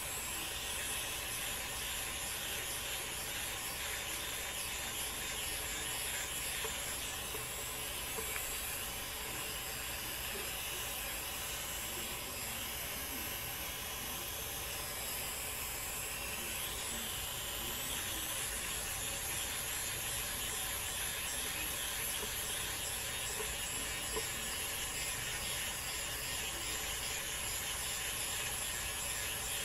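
Small battery-powered Flawless facial hair remover running with a steady whir as it is held against the skin.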